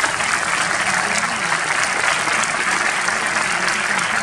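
Cinema audience applauding, a dense, steady clapping.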